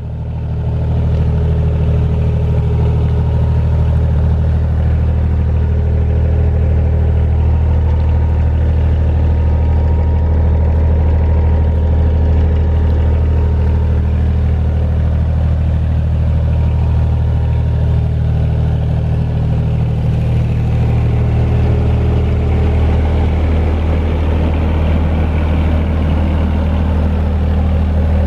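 The diesel generator engine of a JCB LT9 lighting tower running at a steady speed, an even low hum with no change in pace.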